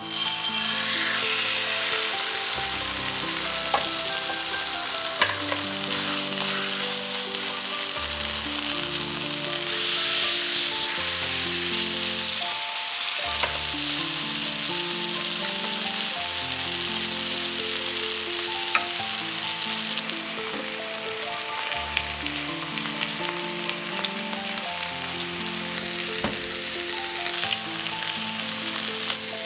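Butterflied chicken breasts frying in hot oil in a frying pan: a steady sizzle that starts suddenly as the first breast is laid in, with a few light clicks of tongs. Soft background music plays underneath.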